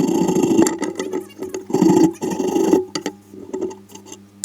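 Close handling noise: rustling and scraping in two loud spells over a steady low hum, with a few lighter knocks and ticks near the end.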